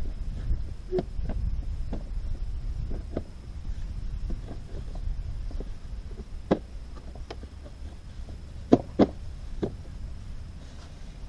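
Plastic stacking planter pots knocking against each other and the pole as they are fitted onto a hydroponic tower: scattered light knocks, a sharper one about six and a half seconds in and two close together about nine seconds in. Wind rumbles on the microphone underneath.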